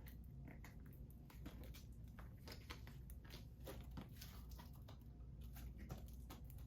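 Faint, scattered clicks and rustles of a plastic 4K Blu-ray case being handled and opened, over a low steady room hum.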